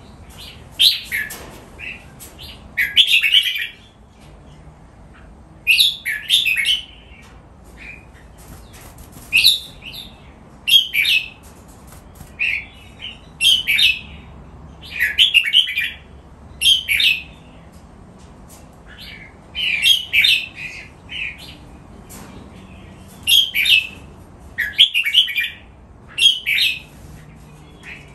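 Red-whiskered bulbul singing: short, clear warbled phrases repeated every one to two seconds.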